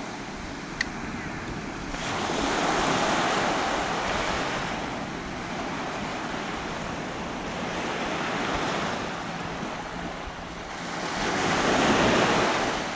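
Small waves breaking and washing up the sand, the surf swelling and falling back every few seconds and loudest near the end, with some wind rumbling on the microphone. A single sharp click about a second in.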